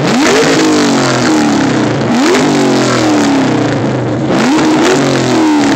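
Ford Mustang SVT Cobra V8 revved hard three times through its exhaust. Each rev climbs quickly and drops back slowly toward idle.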